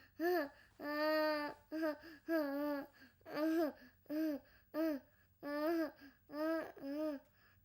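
A young child crying in a string of short, broken wails, about ten in a row, each rising and then falling in pitch with small catches between them.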